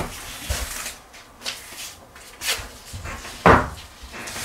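Handling noises as foil vapour-barrier tape is pressed onto ceiling insulation boards: scattered short rustles and knocks, the loudest a thump about three and a half seconds in.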